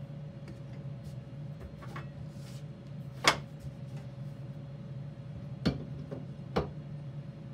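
Three sharp knocks and clacks, the loudest about three seconds in and two smaller ones near the end, as a metal stop block and steel rule are handled and set down on a wooden workbench. A steady low hum runs under them.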